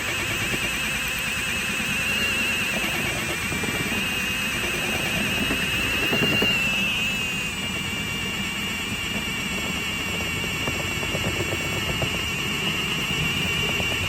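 Power drill boring through the trailer wall for a vent hole, a steady high whine that wavers slightly in pitch throughout.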